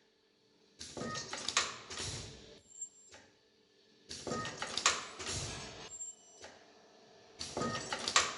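Automatic nylon zipper film welding machine running its production cycle: sharp mechanical clacks and a burst of hissing repeat about every three and a half seconds, once per zipper piece, with short pauses between.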